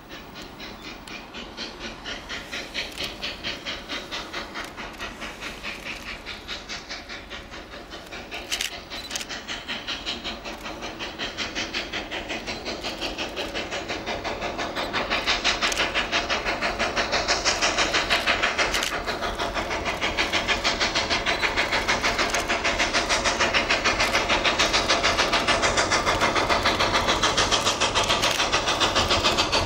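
Quincy Railroad #2, a 2-6-2T steam tank locomotive, working toward the listener with a steady, even exhaust chuff. It grows louder as the engine draws near.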